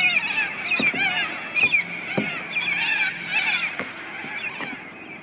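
A group of black swans calling, with short, bent, honking notes repeated and overlapping, thinning out near the end.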